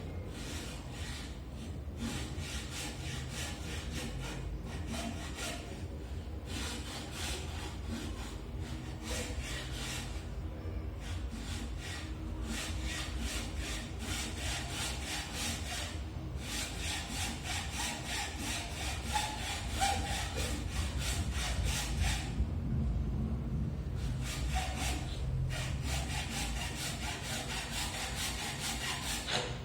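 Rhythmic back-and-forth rasping strokes, several a second, in runs of a few seconds broken by short pauses.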